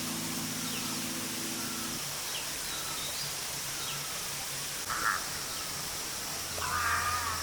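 Forest birdsong: a small bird gives faint, thin falling chirps every second or so, a short call comes about five seconds in, and near the end a crow starts cawing. Low steady music notes fade out about two seconds in.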